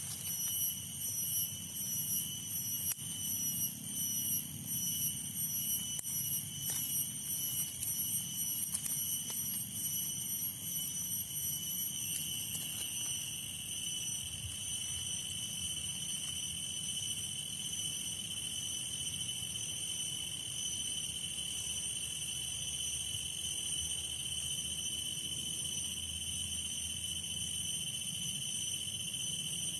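Cicadas calling: a loud, high, ringing drone that swells and fades about once a second for the first twelve seconds, then holds steady.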